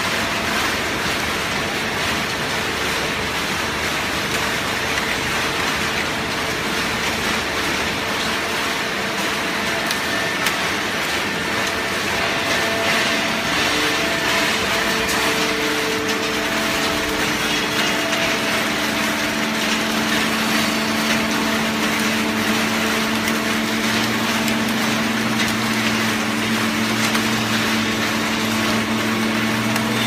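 Horizontal hydraulic baler running: a steady machinery din with several constant hum tones from its motor and hydraulic pump. A lower, stronger hum comes in about two-thirds of the way through.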